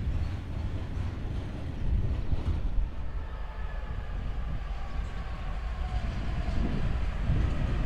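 Low rumble of freight wagons rolling on the track, then a Class 66 diesel locomotive approaching from a distance with its train. Its faint steady engine tones come in about halfway through.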